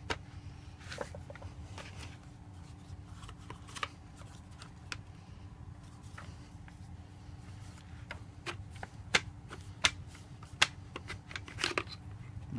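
Polymer trigger-group section of a Kel-Tec RFB rifle being worked loose and rotated out of the receiver by hand: irregular plastic-and-metal clicks and knocks, with a few sharper clicks in the second half.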